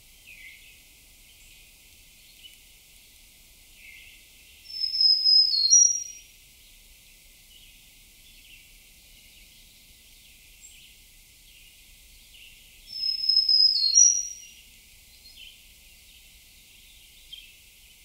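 A songbird singing the same short, high, clear phrase twice, about eight seconds apart, over faint scattered chirps of other birds.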